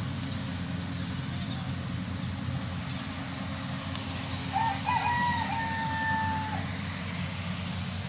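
A steady low engine hum, with a single farm-animal call about halfway through that wavers at first and then holds one pitch for over a second.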